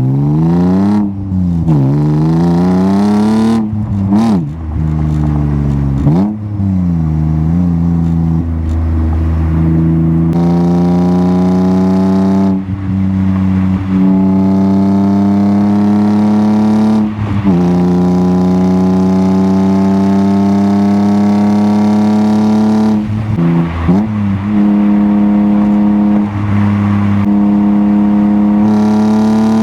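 E36 BMW M3's straight-six engine through a Turner Motorsports axle-back exhaust, heard on the move. In the first ten seconds it revs up and down several times; after that it pulls through the gears, its pitch climbing slowly and dropping sharply at each upshift, about every five seconds.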